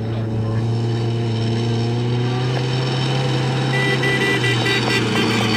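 Suzuki Jimny off-road rally car's engine running hard under load, holding a steady note whose pitch sinks slowly as the car climbs the dirt slope.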